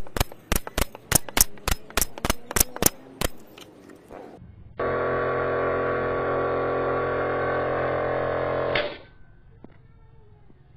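Pneumatic F50 brad nailer firing about a dozen brads in quick succession, roughly three or four sharp shots a second, driving them into wooden tiles. After a pause, a steady many-toned hum runs for about four seconds and cuts off abruptly.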